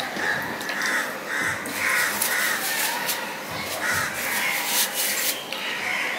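Fingers squishing and mixing rice with curry on a steel plate, with short rubbing and crackling sounds. Behind them, a bird caws harshly over and over, roughly every half second.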